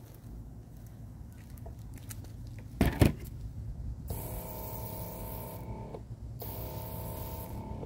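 An aerosol spray can hissing in two bursts, about two seconds and a second and a half long, with a faint whistling tone under the hiss, wetting the concrete where insects are. Just before it there is a single knock.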